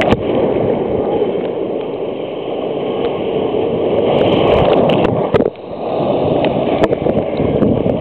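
Surf rushing and breaking in a loud, steady wash around a waterproof camera held at the water's surface, with sea water splashing over the camera and scattered sharp clicks. The wash drops off briefly about five and a half seconds in, then builds again.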